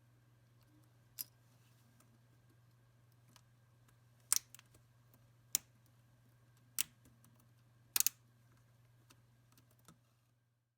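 Plastic keycap on a Lenovo N22 Chromebook keyboard being pushed down and snapping onto its hinge clip: about five sharp clicks a second or so apart, the last a quick double click, over a faint steady low hum.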